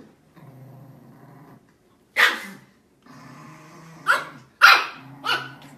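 Small dog growling low and steadily, broken by four sharp barks during play with another small dog.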